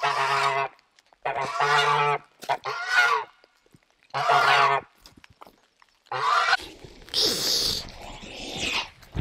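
Domestic goose honking: five loud calls in the first six seconds or so, each about half a second to a second long, followed by a stretch of rustling and scuffling with a brief higher call.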